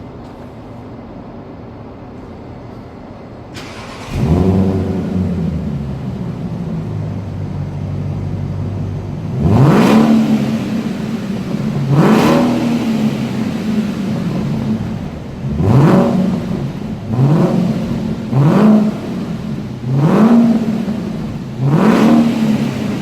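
Audi A8 4E's 4.2-litre V8 starting about four seconds in, flaring up and settling to a steady idle. It is then revved in seven short blips, each rising and falling back to idle.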